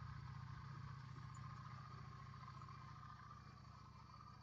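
Motorcycle engine running with a steady low pulsing note and a fainter higher hum, growing gradually quieter over the few seconds.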